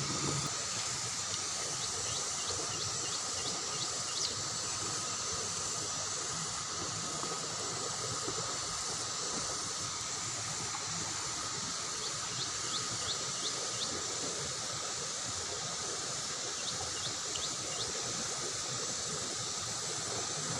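Swift river current rushing steadily, a constant hiss of fast-flowing water. A few brief runs of faint high chirps sound over it.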